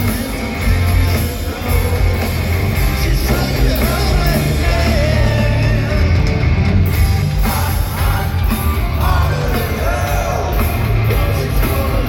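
Live rock band playing: a male lead vocal sung over amplified electric guitars and bass guitar.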